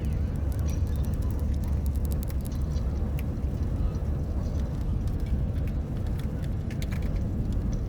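Steady low road and engine rumble heard inside a moving car's cabin, with many scattered light ticks and taps over it.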